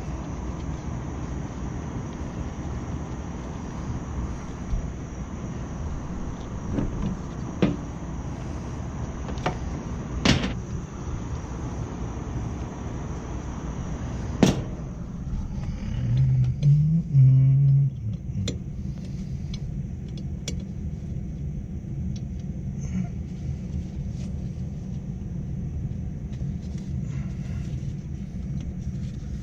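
Steady low rumble of running rooftop HVAC machinery, with a few sharp metallic clanks of tools on the unit and a brief louder low hum about halfway through.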